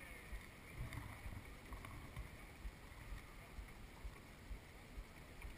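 Dragon boat under easy paddling: paddles dipping and water washing along the hull, with an irregular low rumble.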